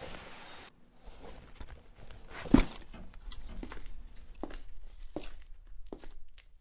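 Footsteps of a man climbing stone steps, one step about every 0.7 seconds, with a single louder thump about two and a half seconds in.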